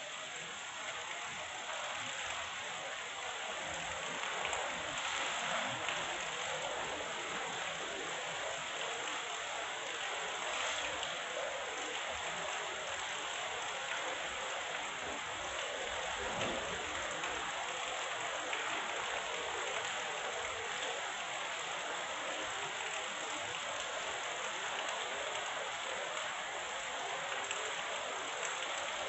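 Heavy rain falling steadily, an even downpour hiss that swells slightly a few seconds in.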